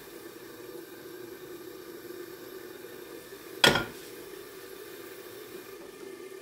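Steady low sizzle of a covered frying pan of seafood stewing on a gas stove, with one sharp clink of cookware a little over three and a half seconds in.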